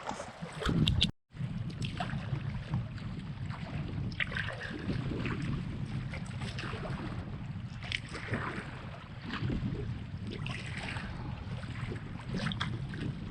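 Wind buffeting the microphone in a steady low rumble on open, choppy lake water, with irregular splashes of kayak paddle strokes and waves every second or two. The sound cuts out briefly about a second in.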